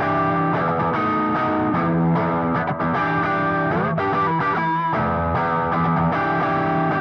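Background music: an electric guitar with distortion and effects playing sustained chords.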